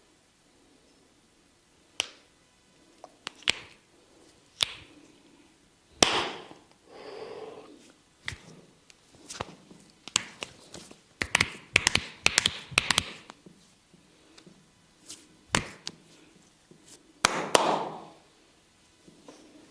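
Massage percussion on the body: scattered sharp taps and knocks, with a quick run of taps about halfway through. Two longer rubbing sounds come in, one about six seconds in and one near the end.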